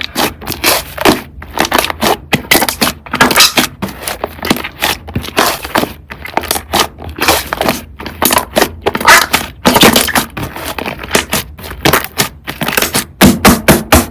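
Slime being squished and pressed by hand close to the microphone, making dense, irregular crackles and air-bubble pops.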